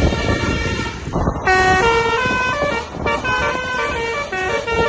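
Tour bus's basuri telolet horn playing a multi-note tune, its pitches stepping up and down, starting about one and a half seconds in over the rumble of the moving bus.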